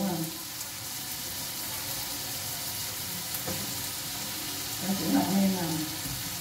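Beef and onions sizzling steadily in a frying pan as they stir-fry, stirred with chopsticks.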